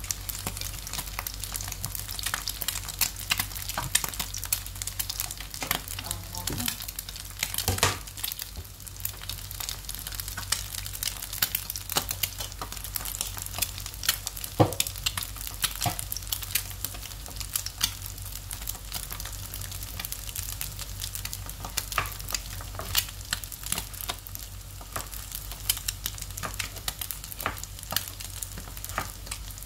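An egg frying in hot oil in a nonstick pan, sizzling with a constant stream of crackles and pops. A steady low hum runs underneath.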